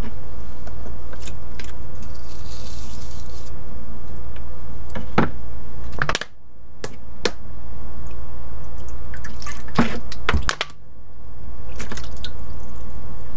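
Water splashing and dripping in a plastic tub as a mesh pump strainer and its plastic cup are rinsed by hand, with a few sharp clicks of plastic parts. A steady low hum runs underneath.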